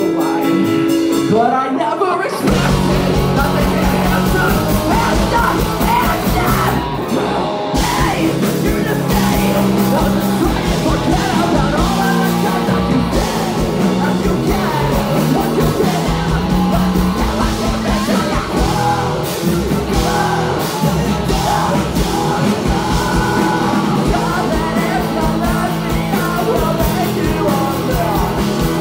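Live rock band playing loud, with electric guitars, bass guitar, drums and sung and shouted vocals, heard close to the stage. The full band comes in about two seconds in after a sparser opening.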